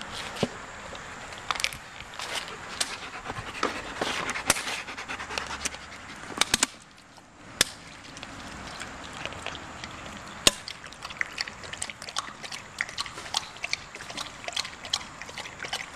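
Black German Shepherd lapping water from a collapsible bowl: a run of quick, irregular wet clicks and splashes from its tongue.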